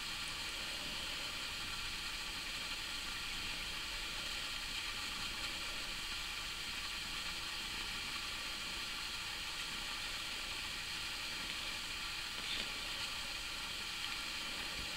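Steady hiss of recording noise, with one brief faint sound about twelve and a half seconds in.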